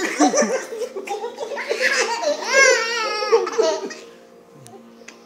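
Toddler laughing hard in rapid fits, with a long high, wavering squeal about halfway through. The laughter dies away about a second before the end.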